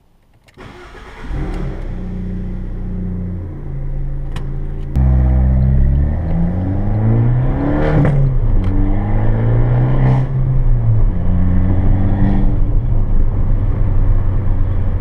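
Alfa Romeo MiTo's engine starting about a second in and idling, heard from inside the cabin. About five seconds in it is heard driving, the engine note rising as it accelerates and falling again.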